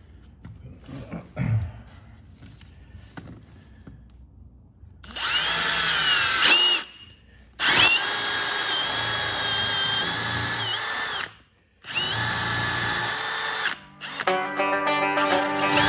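Cordless drill with a spade bit boring holes through the wall siding. After a few quiet seconds of light clicks it runs in three bursts with short stops between: the first speeds up and wavers in pitch, the next two run steady. Background music comes in near the end.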